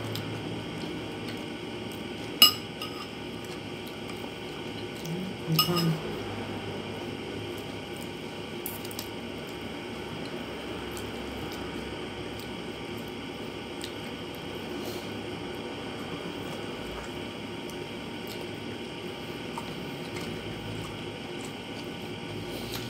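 Eating with the hand from a plate: wet, squishy chewing and mouth sounds and fingers working rice and fish, over a steady background hum. A sharp click about two and a half seconds in, and a brief louder sound a few seconds later.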